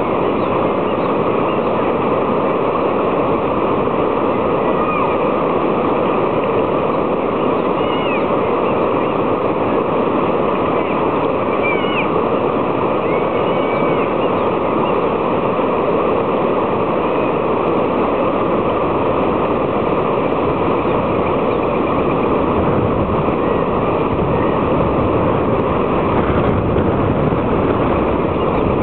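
Water rushing over a low-water bridge and swirling in whirlpools, a loud steady noise with no breaks.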